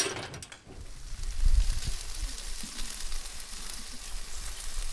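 A short metal clank right at the start, then chicken wings and legs sizzling on a charcoal grill: a steady crackling hiss of fat and juices on the hot grates.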